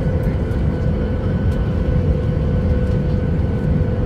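Cabin noise of a Boeing 737 MAX 8 heard from a window seat over the wing: its CFM LEAP-1B jet engines running with a steady low rumble and a steady hum, while the aircraft is on the ground.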